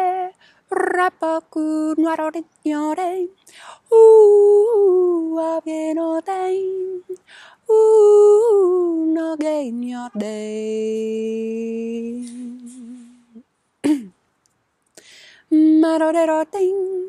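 A woman's voice singing light language: wordless syllables, some in quick runs of short repeated notes, others drawn out into long held notes with small bends. About ten seconds in, the voice slides down and holds a low note for about three seconds.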